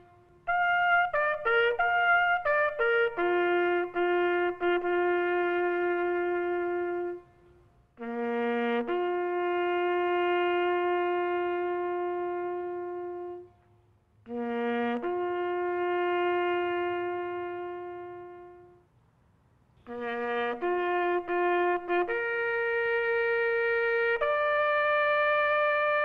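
A solo bugle playing a slow military call. It comes in four phrases of quick notes, each ending on a long held note that fades away, with short silences between. In the last phrase the held note steps up and is held.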